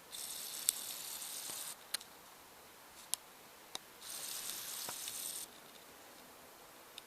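Two bursts of high-pitched hissing, each about a second and a half long, the first starting right at the beginning and the second about four seconds in, with a few sharp clicks in between.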